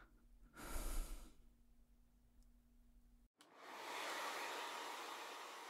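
A short soft noise about a second in, then a hair dryer switched on about three seconds in and running steadily, blowing warm air on hair.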